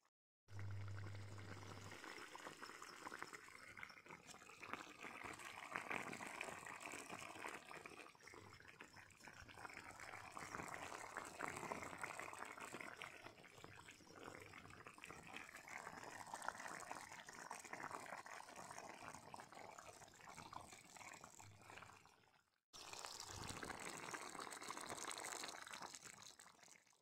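Chicken karahi simmering in its juices and ghee in a wide iron wok over a wood fire: a steady bubbling and sizzling made of many fine crackles. It cuts out briefly about three-quarters of the way through.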